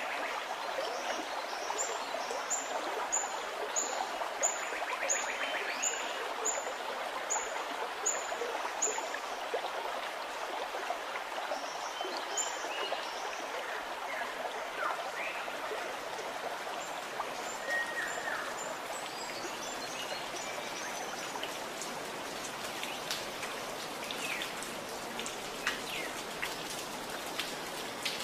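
A steady rushing hiss like rain or running water. Over the first nine seconds a bird chirps about ten short, high notes, roughly one a second. Faint scattered clicks come later.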